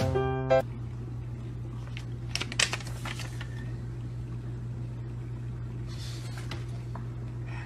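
Steady low electrical-sounding hum with a few faint clicks about two and a half seconds in; background music plays for the first half-second.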